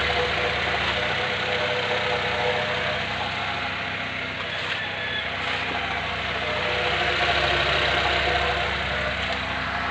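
2005 Honda Civic engine idling steadily with new spark plugs fitted, being listened to for the misfire it had before.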